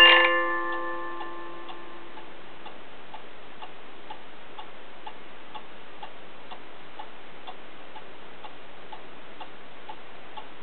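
Black Forest cuckoo clock ticking steadily, about two ticks a second. The last notes of its tune fade out in the first second or two.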